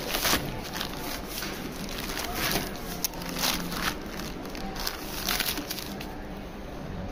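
Packaging of grout bags and a sack of tile adhesive crinkling and rustling as they are handled and shifted in a wire shopping trolley, in a series of short irregular bursts.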